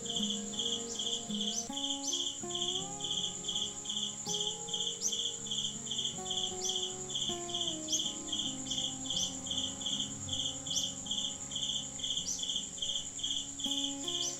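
Insects calling: a high, steady pulsing trill at about two to three pulses a second over a continuous higher buzz, with short rising chirps every second or so. Faint sustained tones that glide slowly in pitch sit underneath.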